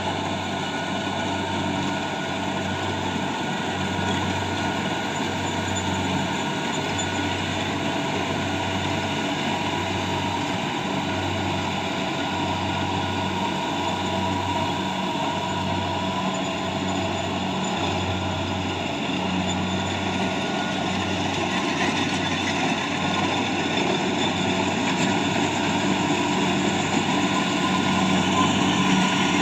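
Rice combine harvester running steadily, its engine giving a low throb that pulses about once a second, with a steady machine hum above. It grows slightly louder near the end.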